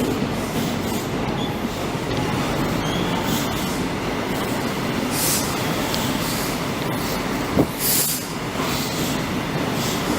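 Train moving along the platform line, a steady rumble of wheels on rail with two brief high hisses and a single sharp knock a little past the middle.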